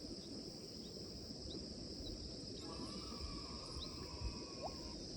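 Steady high-pitched insect chorus, with a few short bird chirps over it and a faint held tone from about halfway that drops away near the end.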